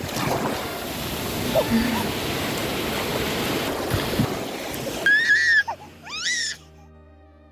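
Sea surf washing in, with wind buffeting the microphone, then two short, high-pitched squeals from a small child, the second rising in pitch. Soft background music comes in near the end.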